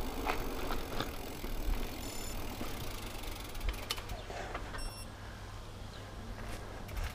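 Rockrider XC50 mountain bike rolling over rough, cracked asphalt, with steady tyre and drivetrain noise and a couple of knocks near four seconds in as it bumps up onto the pavement. Two short high electronic beeps sound, about two and five seconds in.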